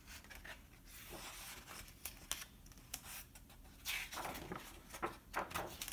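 Faint rustling and soft ticks of a hardcover picture book's paper pages being handled and turned by hand, with the loudest swish of paper about four seconds in.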